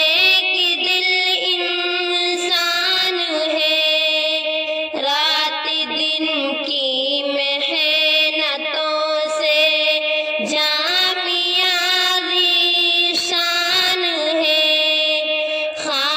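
A female voice singing an alvida tarana, a farewell song, in a slow melody with long held notes.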